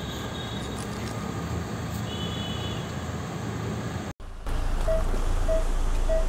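SUV engine running with a steady low rumble as the car creeps forward over a 3D-printed pickleball, with no crack or pop from the ball. After a brief cut, short evenly spaced beeps sound about every half second.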